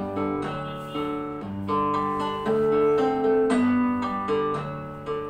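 Background music of a plucked acoustic guitar playing a melody of separate notes and chords.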